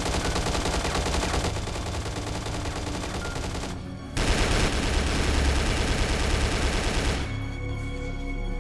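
Rapid automatic rifle fire in two long bursts, a brief break about four seconds in, stopping abruptly about seven seconds in. Music plays underneath.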